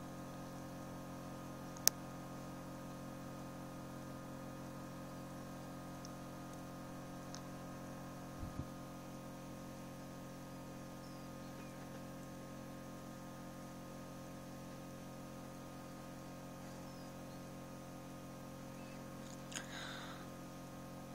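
Egg incubator running with a steady hum made of several fixed tones. A single sharp click about two seconds in, a soft double knock near the middle, and a brief higher-pitched sound near the end.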